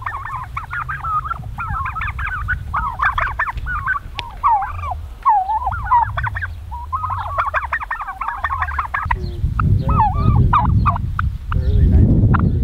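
A flock of young Bourbon Red turkeys calling together, a busy chatter of short high yelps and chirps. After about nine seconds the calls thin out to scattered short calls and clicks, and a low rumbling noise comes up.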